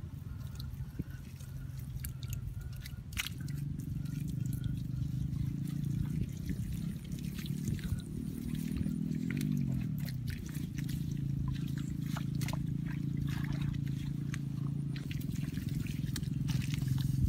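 Wet mud and muddy water being scooped by hand, with trickles, drips and small splashes. A low steady drone comes in a few seconds in and wavers in pitch about halfway through.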